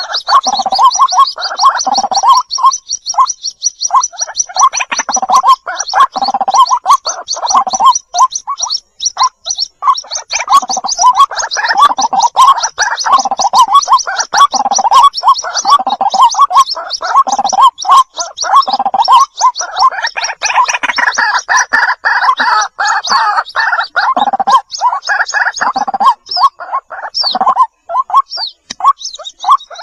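White-breasted waterhen chicks calling to their parent: a dense, rapid run of high peeping notes over lower, throatier repeated calls, broken by brief pauses.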